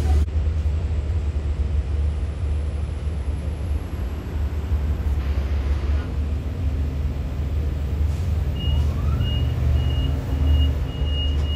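Steady low rumble of a Long Island Rail Road train, heard from inside a bilevel coach while another train passes close alongside. About three-quarters of the way in, a grade-crossing warning bell starts dinging high and fast, about two strikes a second.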